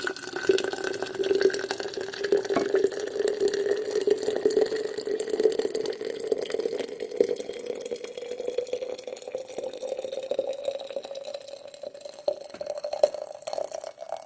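Boiling water poured in a steady stream into a jar, the tone of the filling rising slowly as the jar fills to about half. The pouring stops abruptly near the end.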